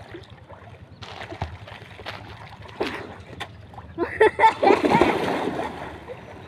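A person jumping into a pool: a loud splash about four seconds in, followed by water sloshing as it settles. Lighter splashing from swimmers comes before it.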